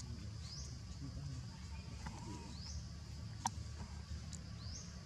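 A bird giving a short rising chirp about every two seconds, three times, over a steady low rumble, with one sharp click about three and a half seconds in.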